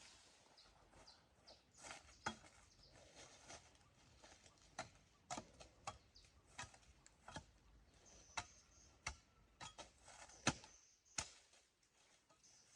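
Quiet, irregular light clicks and taps, one every second or so, with the loudest a little past the middle. Faint short chirps come in near the end.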